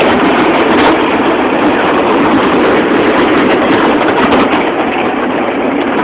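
A small boat's motor running as its hull breaks and grinds through thin ice, a steady dense noise without a clear pitch.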